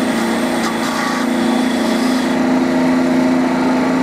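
Small wood lathe's electric motor running steadily with a constant hum, while a strip of fine sandpaper rubs against the spinning wood and adds a hiss.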